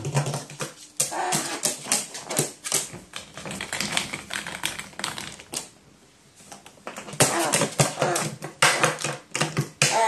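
A crow's beak pecking and tapping fast at hard plastic objects and the floor: a dense run of sharp clicks and clatters that eases off briefly a little past the middle, then picks up again.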